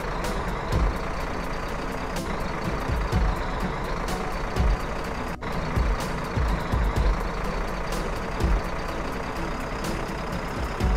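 Heavy excavators' diesel engines running under load, with irregular knocks and crashes of reinforced concrete being broken and falling onto rubble.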